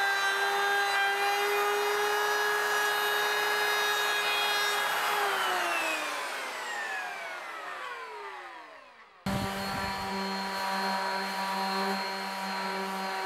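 Router with a roundover bit running at a steady high whine, then switched off about five seconds in and winding down, its pitch falling away. About nine seconds in, an abrupt change to a random orbital sander running with a lower steady hum.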